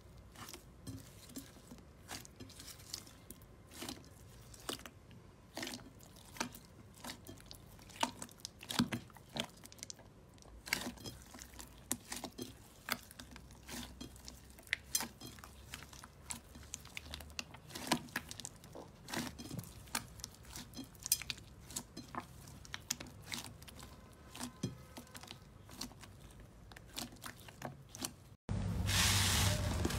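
Slime being kneaded and pressed by hand: blue slime packed with white foam beads, then a fluffy slime, giving small irregular crunchy crackles and pops, several a second. In the last second and a half a louder, denser crackling from another slime takes over abruptly.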